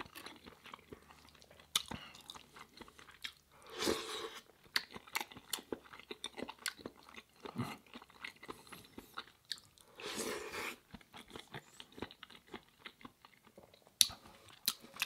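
Close-miked chewing of plant-based chicken curry and rice: soft, wet mouth sounds with many small irregular clicks and smacks, and a couple of louder, longer stretches about four and ten seconds in.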